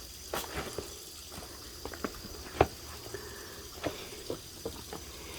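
Hiking boots and hands scuffing and knocking on boulders while someone clambers over them: irregular soft knocks and scrapes, the loudest about two and a half seconds in.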